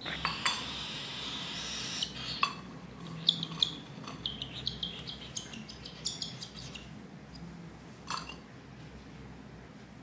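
A metal spoon clinking lightly against a steel tumbler during spoon-feeding, with a cockatiel's short high calls.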